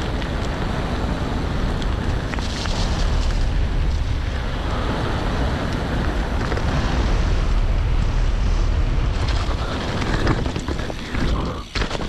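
Wind buffeting the camera microphone and mountain bike tyres rolling over a dirt trail while riding, a steady loud rush with a deep rumble that dips briefly near the end.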